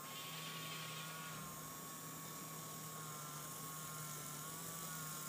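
Small battery-powered DC motor spinning up a gyroscope rotor: a steady whine with a low hum under it, its pitch wavering slightly, with a rougher hiss in the first second and a half.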